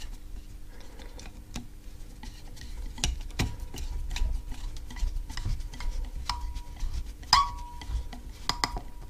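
Screwdriver work on a mobility scooter DC motor while new brushes are fitted: irregular small clicks and light metallic taps, getting busier about three seconds in, with a faint ring now and then.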